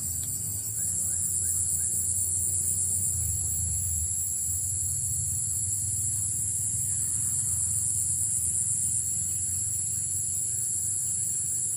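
Steady, high, finely pulsing insect chorus that grows louder about a second in, over a low rumble.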